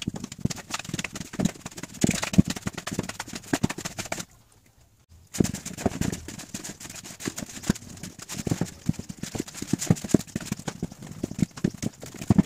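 Hands kneading pizza dough in a plastic bowl: irregular soft thumps and slaps of the dough against the bowl, with a break of about a second around four seconds in.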